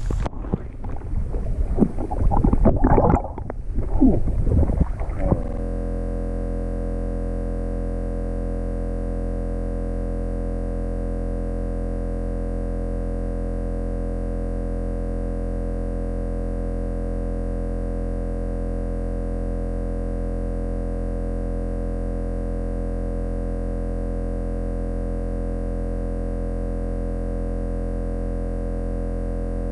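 A few seconds of loud, irregular noise, then about five seconds in a steady, unchanging synthesizer chord that holds for the rest.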